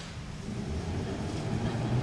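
Low vehicle rumble with a steady low hum, starting to build about half a second in and growing louder.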